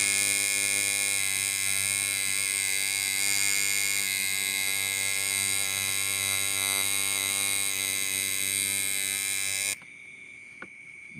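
Coil tattoo machine buzzing at a steady pitch, then cutting off suddenly near the end.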